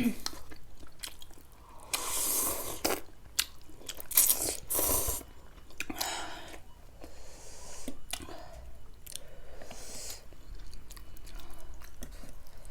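Close-up mouth sounds of a person chewing and biting food, with several louder hissing bursts at intervals.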